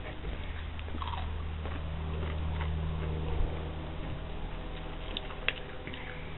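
Chewing of Takis rolled tortilla chips, with a few crisp crunches, two sharper ones about five seconds in. Under it runs a low steady hum that swells around the middle.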